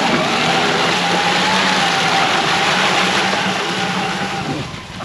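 Electric UTV driving under power: a steady electric drive-motor whine over a loud rushing noise that starts suddenly and fades out near the end.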